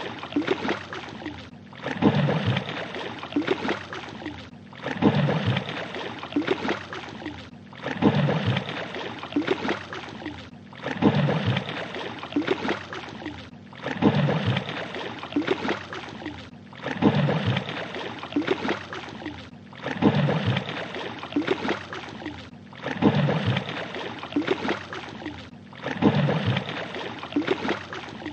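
Fish splashing at the water's surface. One short splashing sequence repeats about every three seconds, each time after a brief gap.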